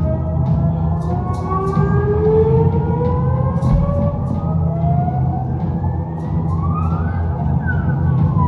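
Live heavy rock band playing loud: a thick, steady bass drone under several slowly rising, overlapping wailing pitch glides, with regular cymbal crashes.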